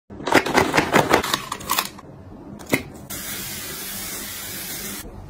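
A quick run of clicks and taps from makeup packaging being handled and a single click, then, about three seconds in, a face mist spray bottle gives a steady hissing spray for about two seconds that cuts off sharply.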